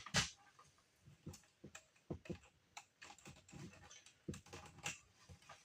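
Scattered light clicks and soft knocks at irregular intervals, like small parts being handled.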